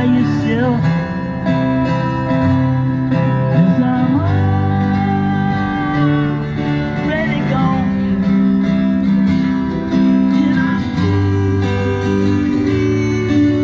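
Acoustic guitar strummed with a singing voice, music at a steady level throughout.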